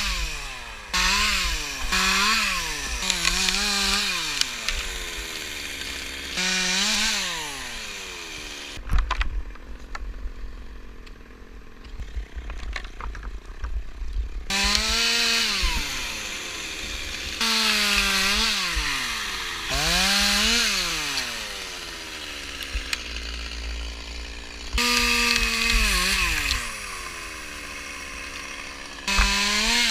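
Chainsaw revving up and dropping back again and again while cutting wood. Near the middle the saw stops for about five seconds, leaving irregular knocks and thuds.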